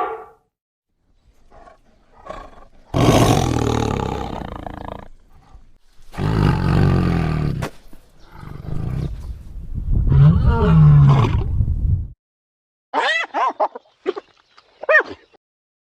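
A large wild animal roaring, three long, loud roars one after another. Near the end come a few short, high calls that bend in pitch.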